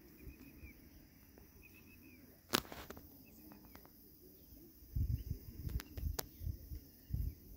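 Outdoor field ambience: a bird repeating a short, high trill of quick chirps, a single sharp click about two and a half seconds in, and low rumbling from about five seconds in.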